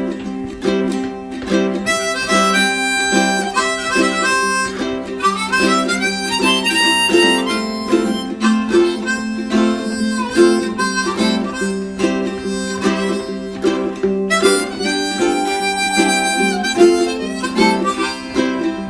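Harmonica playing a solo of long held notes over a strummed stringed accompaniment: an instrumental break with no singing.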